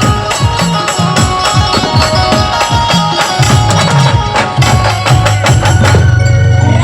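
Brass band music: fast, dense drum and percussion beats under held melody notes, settling onto a steady low note near the end.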